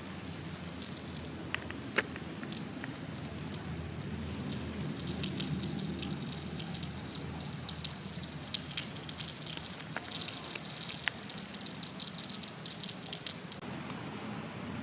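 Steady outdoor background hiss with a few sharp clicks, the loudest about two seconds in, and short high chirps through the middle.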